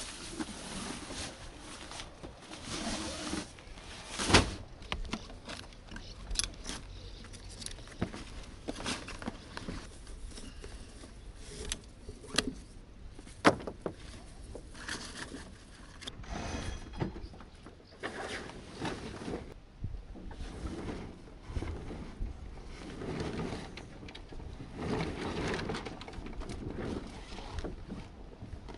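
Scattered knocks, clicks and rattles of deck gear and rigging being handled aboard a sailing yacht as a halyard is hauled and the foresail set. Two sharp knocks, about four seconds in and near the middle, are the loudest.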